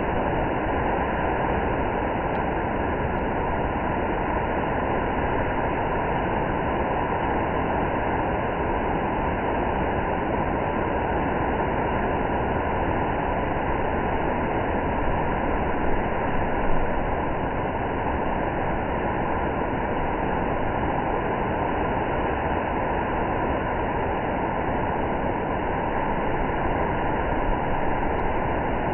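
Steady rushing noise with no distinct tones, holding level throughout, with two brief slight bumps about two-thirds of the way through.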